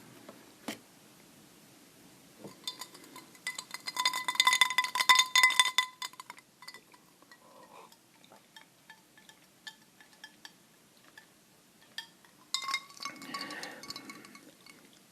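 Rapid tapping and clinking on a hard object that rings with a clear tone. The taps come in two flurries: a long one from about two and a half to six and a half seconds in, loudest around five seconds, and a shorter one near the end, with scattered single taps between.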